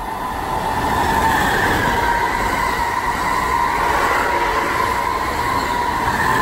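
Amtrak high-speed electric train passing at speed: a rush of wheels on rail and displaced air that builds over the first second and then holds loud, with a steady high whine running through it.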